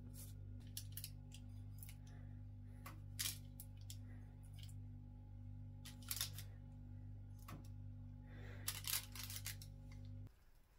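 A few short clicks and scrapes of a spoon and food being handled on a parchment-lined metal baking tray, the loudest about three, six and nine seconds in. Under them a steady low hum runs, then cuts off abruptly near the end.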